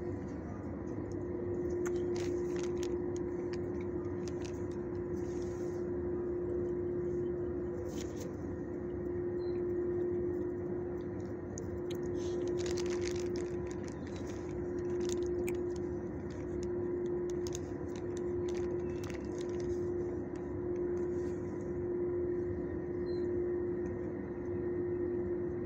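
A steady mechanical hum with one clear pitch over a low rumble, with scattered clicks and crinkles from a plastic zipper bag of treats being handled as a dog sniffs at it.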